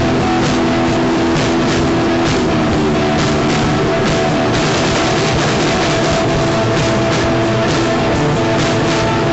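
Loud rock music with electric guitar and a drum kit keeping a steady beat.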